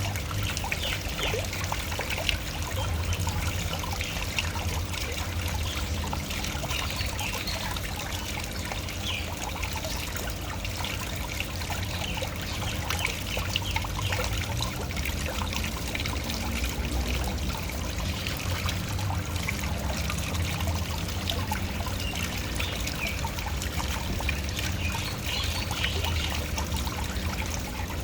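Waterfall running steadily: a constant rush of falling water with a dense patter of small splashes and trickles.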